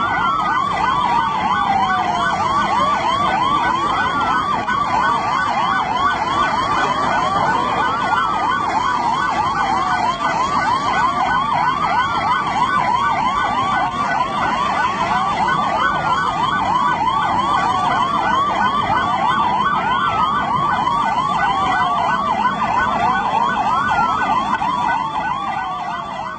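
Several emergency-vehicle sirens sounding together: a rapid, repeating yelp overlaid by slower wails that fall in pitch every few seconds. The sirens fade out near the end.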